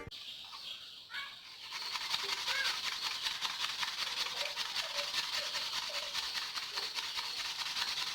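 Outdoor rural background: a steady high hiss with short faint animal calls now and then.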